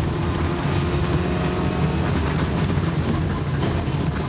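Mitsubishi Lancer Evo IX rally car's turbocharged four-cylinder engine running hard at speed on a stage, heard from inside the cabin, fairly steady in pitch.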